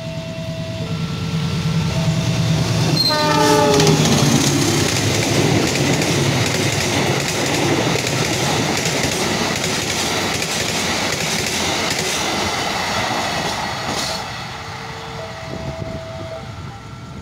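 Level-crossing warning chime alternating between two tones while a diesel locomotive's engine rumbles closer. About three seconds in, the horn gives a short blast that drops in pitch as the locomotive passes. The express coaches then rush past with wheels clacking on the rails for about ten seconds, and once the train has cleared the crossing chime is heard again.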